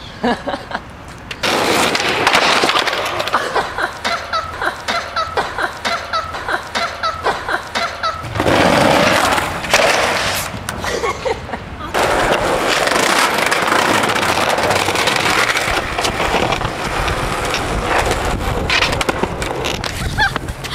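Skateboard wheels rolling on concrete and boards clattering as skaters fall, with a long stretch of steady wheel-rolling noise in the second half.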